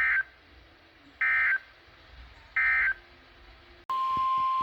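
Three short SAME digital data bursts of an Emergency Alert System broadcast on NOAA Weather Radio, the end-of-message code, about 1.3 s apart. A steady 1050 Hz warning alert tone then starts abruptly near the end.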